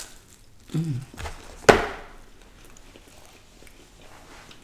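Close-miked eating sounds: a short hummed 'mm', then a single sharp crack about a second later, the loudest moment, followed by a few faint small clicks.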